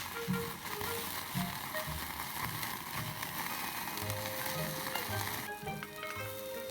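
Meat sizzling on a grill, a steady crackling hiss that drops away abruptly about five and a half seconds in, under background music.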